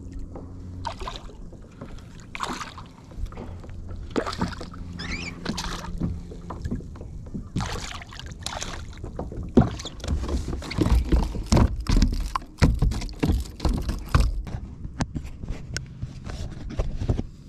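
Choppy water splashing and slapping against a fishing kayak, mixed with irregular sharp knocks. In the strong wind, a low rumble buffets the microphone. The knocks and splashes grow denser and louder in the second half.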